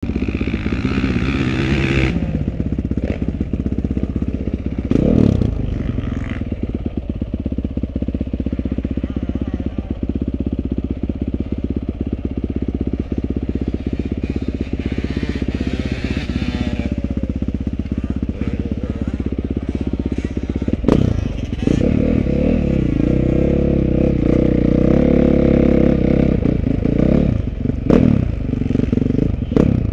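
Dirt bike engine idling steadily close by, then getting louder and running under load about 21 seconds in as the bike rides off. There are a few sharp knocks near the end.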